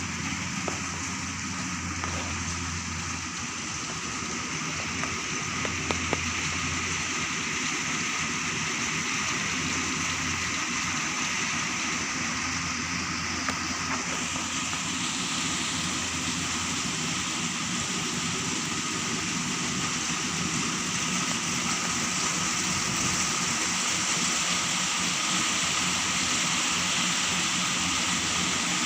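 Kubota DC93 rice combine harvester running steadily while cutting rice: a constant machine drone with a steady hiss of rain. It grows slightly louder from about halfway.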